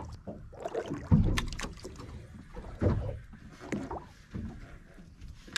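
Water slapping and lapping against the hull of a drifting fishing boat in irregular splashes, over a low rumble.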